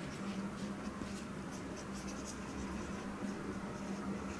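Hand writing with a pen: a run of short, faint strokes as the terms of a worked answer are written out, over a low steady hum.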